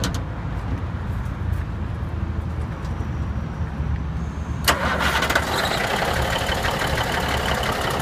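Cummins Big Cam 350 diesel in a 1979 Kenworth W900A being started: a low rumble while it turns over, then it fires about four and a half seconds in and runs, much louder.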